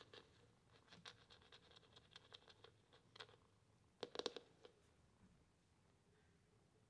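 A kitten's claws scratching and tapping on a laminate floor as it pounces and plays: faint quick ticks over the first three seconds, then a louder cluster of scratches about four seconds in.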